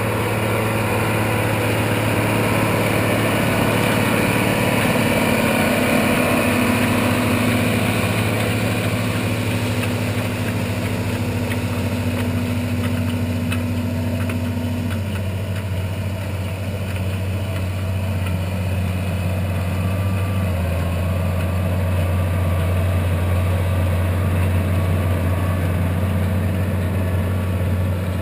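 Farm tractor diesel engine running under steady load, a continuous drone whose note shifts a couple of times, about halfway through and again around twenty seconds in.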